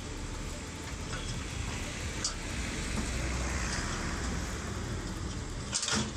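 Crawler excavator's diesel engine running steadily, a low rumble under a wide hiss, with a short sharp click about two seconds in and a louder knock near the end.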